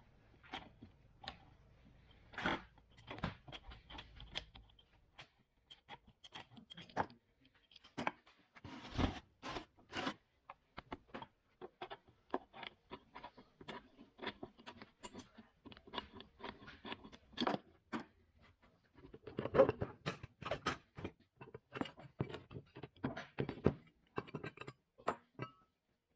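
Irregular metallic clinks, knocks and scrapes of tools and steel parts being handled as a Wilton bullet vise is taken apart. The handling is busiest about a third of the way in and again past the middle.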